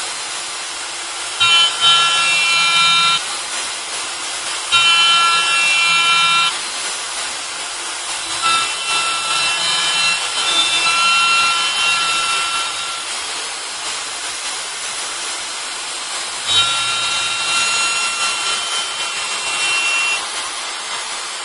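Kress router spindle on a robot arm milling a wooden board: a steady high-speed motor whine with the hiss of the bit cutting wood. A higher whining note rises over it and drops away again four times.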